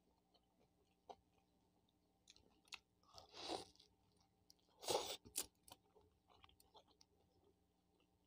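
Mouth sounds of someone eating a crisp-crusted fried empanada: faint wet chewing clicks, with two louder crunchy bites, about three and a half and five seconds in.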